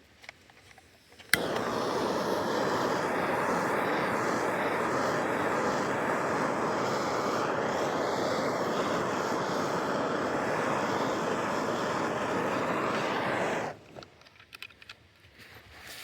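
Handheld torch lit with a sharp igniter click, then burning with a steady rushing hiss for about twelve seconds, heating plastic maple-sap mainline to soften it; the flame is shut off abruptly near the end.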